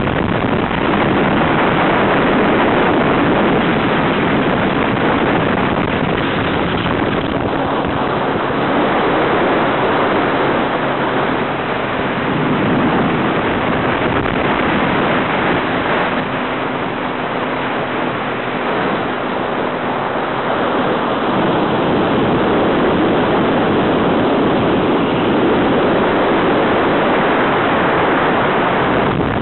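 Personal watercraft (jet ski) running steadily at speed on flat water: a low engine drone under a loud, even rush of wind on the microphone and moving water.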